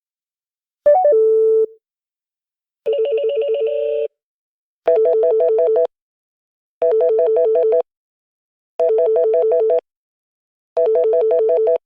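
Electronic phone message tones. First a short two-note beep, then a warbling trill that repeats in one-second bursts about every two seconds.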